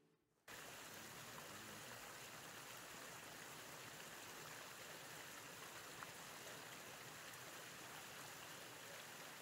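Faint, steady rush of shallow water running over rock, coming in abruptly about half a second in.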